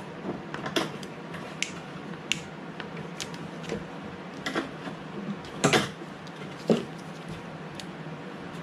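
Irregular light clicks, taps and scrapes of a small hand tool working the fuel line and its crimp clamp off a lawnmower carburetor, with two louder clacks about six and seven seconds in.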